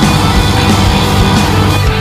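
Loud rock music with a steady driving beat.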